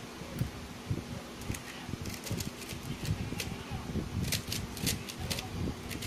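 GuoGuan YueXiao 3x3 plastic speedcube being turned rapidly by hand during a timed solve: a quick, irregular run of clicks as its layers snap round. The clicks start about a second and a half in and are densest about four seconds in.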